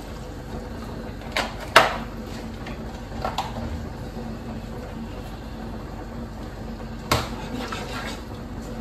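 Milk poured from a plastic jug into a pan of thick roux, then kitchen handling noises: a few sharp knocks and clicks, the loudest about two seconds in, another about seven seconds in, as the jug is set down and the metal whisk goes back into the pan.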